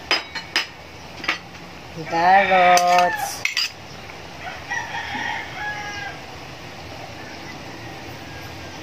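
A metal spoon and a glass bowl clink against the pan as potato and carrot chunks are tipped into a simmering stew, several sharp clinks in the first second or so and again after three seconds. About two seconds in comes the loudest sound, a drawn-out call that rises and then holds for about a second.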